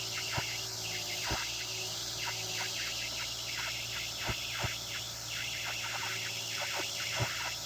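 Insects chirping rapidly over a steady low hum, with a handful of sharp clicks scattered through it.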